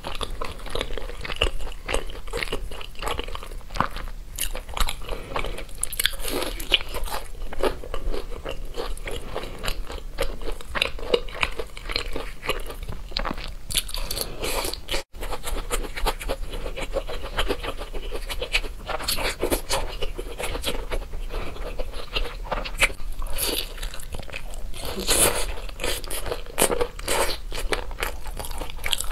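Close-miked biting and chewing of crispy, sauce-coated fried meat: dense, irregular crunching throughout. The sound breaks off for an instant about halfway through.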